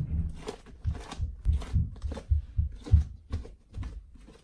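Handling noise from a fabric sleeve brushing and bumping against the recording phone: a string of soft low thumps with short rustles, about two or three a second, dying away near the end.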